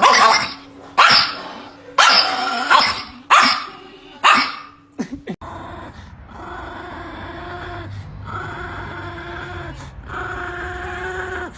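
A dog barking sharply about six times, then from about halfway through giving long, steady-pitched whines, each about a second and a half long with short breaks between them.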